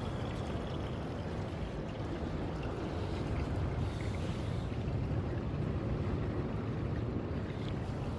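Steady rushing of flowing water, an even noise with no clear events.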